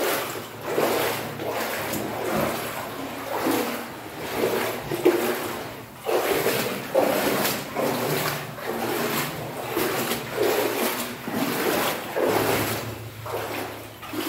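Boots wading through water, a splashing slosh with each step about once a second.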